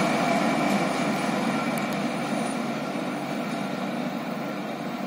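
TES diesel locomotive moving away along the track, its steady engine drone fading gradually.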